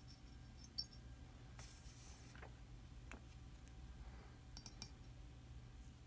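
Near silence over a faint low hum, with a few light metallic clicks of a soldering iron tip against a small connector held in an aluminium jig, about a second in and again near the end. A brief soft hiss comes about one and a half seconds in.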